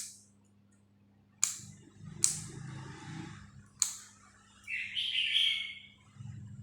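Four sharp clicks of hard small objects, each with a brief ringing tail, spaced a second or more apart, followed near the end by a short, higher, chirping sound of about a second; a steady low electrical hum runs underneath.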